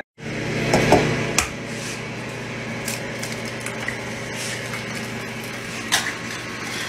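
Egg frying in a hot frying pan: a steady sizzling hiss with a few light clicks, loudest about a second in.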